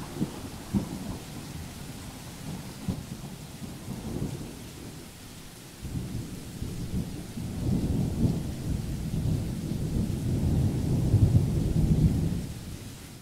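Thunderstorm: steady rain with low rolling thunder that swells in the second half and then fades out.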